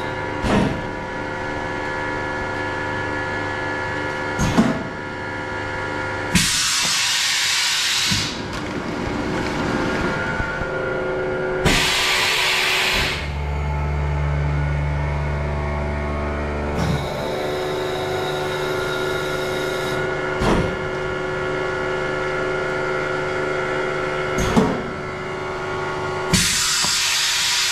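THP-3000 SRV automatic tray sealer running its cycle: a steady machine hum with sharp clicks every few seconds, three bursts of hissing air lasting one to two seconds each, and a low drone for about four seconds in the middle.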